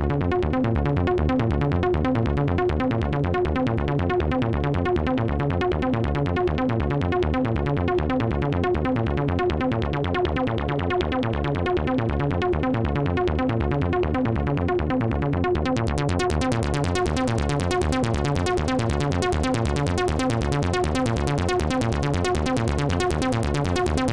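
Fast repeating synthesizer sequence running through the MachineRoom 204D VCF, a eurorack clone of the Moog ladder filter, while its emphasis (resonance) is turned. The sound grows brighter about two-thirds of the way through.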